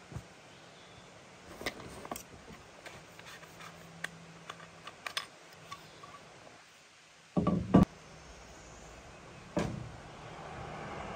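Light clicks and taps of a fly rod and its aluminium rod tube being handled on a truck's bed cover, with two loud knocks a little past the middle and another sharp knock soon after. Near the end a car's tyre and engine noise grows louder as it approaches along the road.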